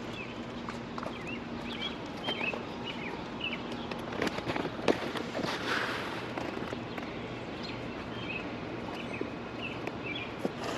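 Small birds chirping in many short calls, with footsteps and a few knocks around the middle and a low steady hum through the first four seconds.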